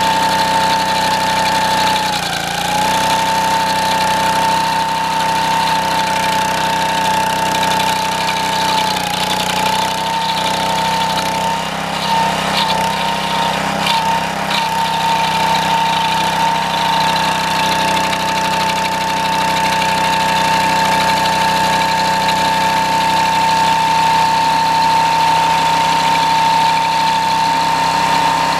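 Homemade stump grinder's 6.5 hp Honda engine running steadily, driving its cutting wheel through a 6:1 gear reduction, with a high steady whine. The pitch dips briefly a couple of seconds in and again around nine seconds, and a few sharp clicks come through in the middle.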